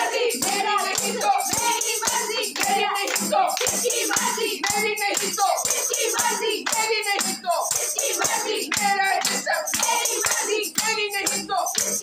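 A group of women chanting a slogan together to rhythmic hand-clapping and a tambourine beaten to a steady beat.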